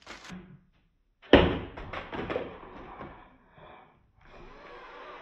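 A sudden loud thump about a second in as a foil number balloon is pressed back onto the wall by hand, followed by softer rustling and handling noise.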